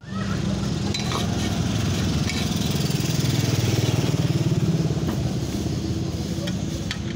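A small engine running steadily with a low, pulsing rumble that swells a little midway, with a few light clicks over it.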